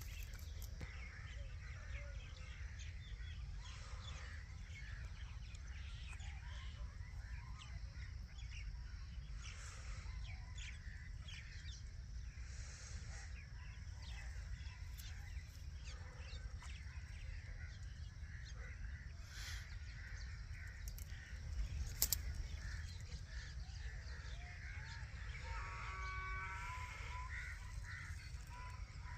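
Parakeets calling and chattering in many short, scattered calls over a steady low rumble. One sharp click stands out about two-thirds of the way through.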